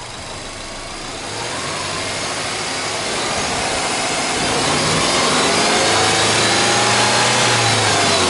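Subaru Legacy B4 2.0GT's turbocharged EJ20 flat-four free-revved: the revs climb steadily and get louder over several seconds, hold high, and begin to drop near the end.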